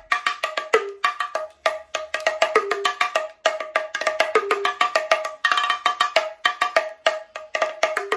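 Yoruba bàtá drums playing a fast rhythm of sharp, pitched slaps and strokes.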